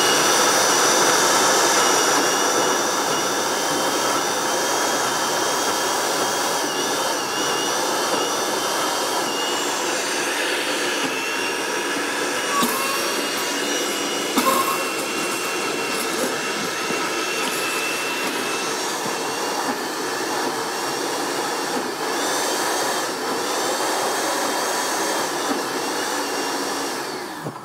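Electric countertop blender running steadily, pureeing chickpeas with tahini, oil and a little water into hummus, its motor whine wavering slightly as the load shifts. It cuts off suddenly just before the end. The water is there so the thick chickpea paste can turn and the blender motor does not burn out.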